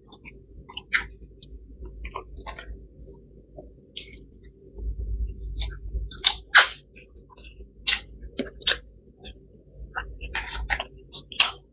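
A person chewing food with the mouth close to the microphone: irregular wet smacks and clicks of lips and tongue.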